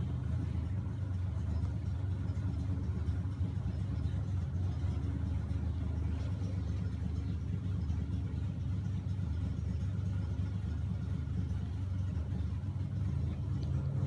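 An engine idling steadily: a constant low rumble.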